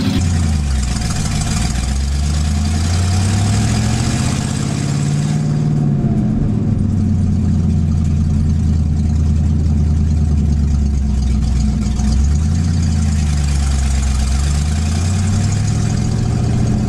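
1989 Ford Mustang LX's 302 V8 with straight headers, heard from inside the cabin while driving. The engine note rises as the car accelerates, falls back about five seconds in and holds steady. Near the end it dips and climbs again.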